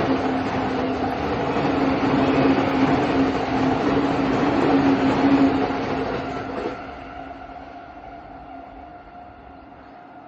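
JR train passing over a level crossing: loud wheel-on-rail noise with a steady hum, which drops off after about six and a half seconds and fades as the train moves away.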